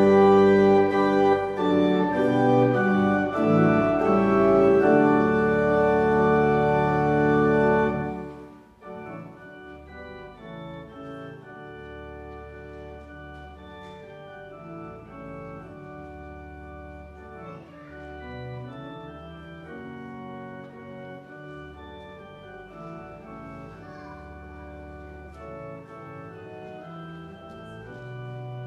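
Church organ playing full, loud held chords, which drop off suddenly about eight seconds in to much softer, quieter playing that continues.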